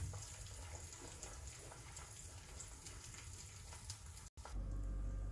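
Eggs sizzling faintly in hot oil in a frying pan, with scattered light crackles. The sound cuts out briefly about four seconds in, and a low steady hum follows.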